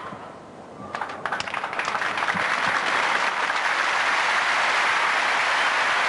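Audience applauding: a few scattered claps about a second in that swell into steady, dense applause.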